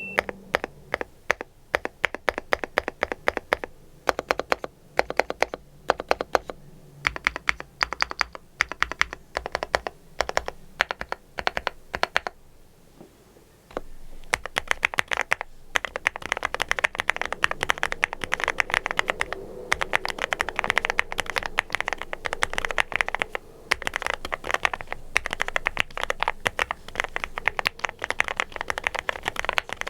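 Typing on the Epomaker x Feker Galaxy80 TKL mechanical keyboard: a fast run of keystroke clacks. It pauses briefly a little before halfway, then resumes fuller and denser.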